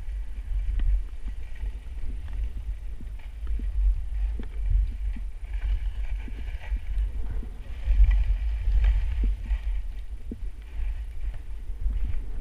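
Wind buffeting the microphone of a skier's camera during a downhill run, with the hiss and scrape of skis on chopped-up snow that swells in stretches in the middle, and scattered small clicks.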